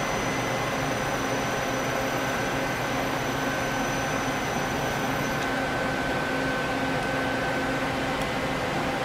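Doosan Puma 2500LSY CNC lathe running under power: a steady machine hum with several steady whining tones. A higher whine comes in about a second and a half in, and a set of very high tones stops about halfway through.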